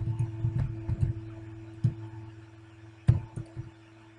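Typing on a computer keyboard: separate keystroke clicks at an uneven pace, the loudest about three seconds in, over a steady low hum.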